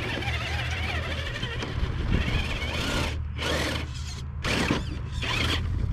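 Electric motor and gears of a scale RC crawler running as it works down a steep dirt slope, with the sound cutting out briefly twice about three and four seconds in.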